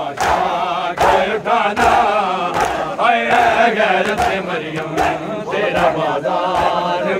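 Many men chanting together in a noha, with sharp slaps of hands beating on bare chests (matam) about once a second.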